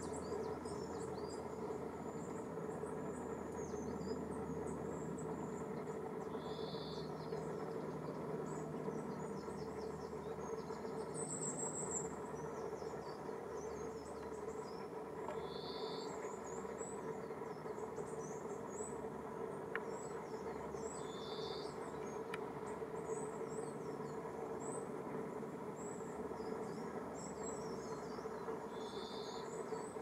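Background birdsong of small birds: thin, high chirps and twittering, with a short buzzy call that comes four times, six to nine seconds apart, over a steady low hum and hiss.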